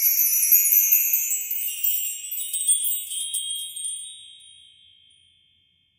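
A high, shimmering tinkling and jingling, like a sound effect or music sting, fading out about four to five seconds in.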